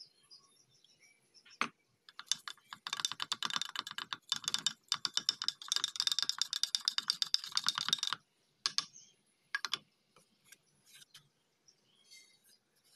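A paintbrush stirring paint in a glass jug, tapping and clicking rapidly against the glass for several seconds, then a few scattered clicks.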